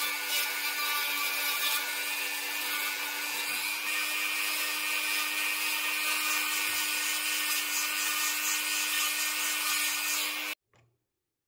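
High-speed rotary tool with a sanding drum running with a steady whine while sanding a cast iron stove leg. It cuts off abruptly near the end.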